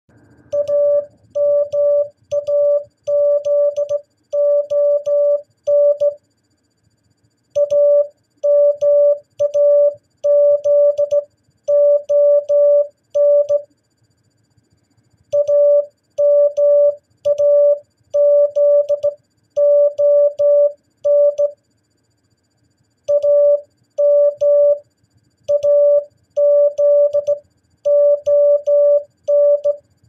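Morse code practice tone from an MFJ-414 Classroom Morse Tutor, keyed by hand on a straight key: loud beeps of dots and dashes on one steady pitch spelling AMAZON, sent four times with a pause of about a second and a half between each.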